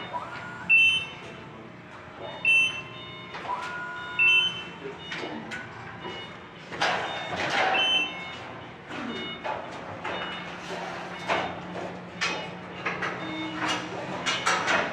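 An electronic warning beeper sounds short high beeps about every second and a half, stopping about eight seconds in. Sharp metallic clanks and taps follow, over a steady low hum.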